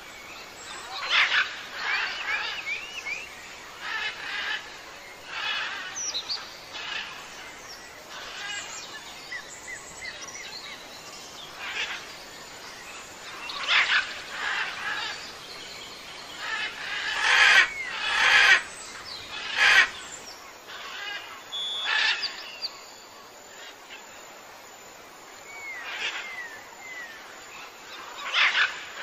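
Wild birds calling: short, sharp calls and quick gliding chirps every second or two, loudest about two-thirds of the way through.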